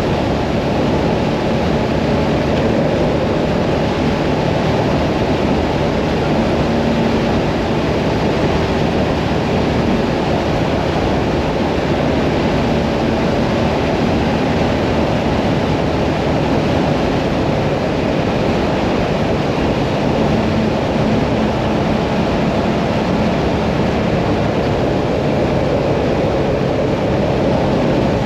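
Hyosung Mirage 650 V-twin motorcycle cruising steadily on the open road. The engine hum sits under heavy wind rush on the microphone.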